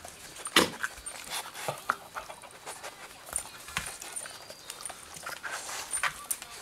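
Dog licking and gnawing at a rubber Kong toy stuffed with tuna: irregular wet smacks and clicks, with knocks of the toy on the floor mat and the sharpest knock about half a second in, over the dog's panting.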